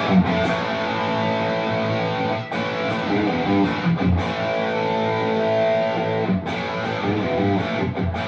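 Electric guitar with P90 pickups, overdriven through a ToneKing Royalist preamp with a Spaceman Redstone boost pedal engaged, playing strummed, ringing chords through powered speakers.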